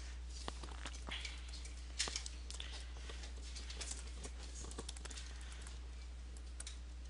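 Computer keyboard keystrokes, sparse and irregular, as code is typed and edited, over a steady low hum.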